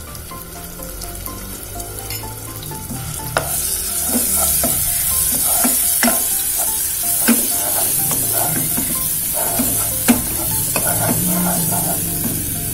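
Ground garlic, shallot and candlenut paste sizzling in hot oil in a small saucepan, the sizzle growing much louder about three seconds in. A wooden spatula knocks and scrapes against the pan as the paste is stirred.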